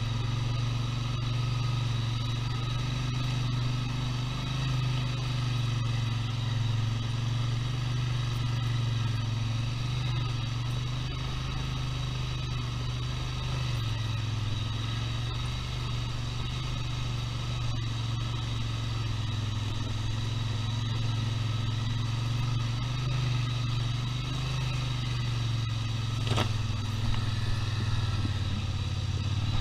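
ATV engine running steadily at low trail speed, a continuous low drone, with one sharp knock near the end.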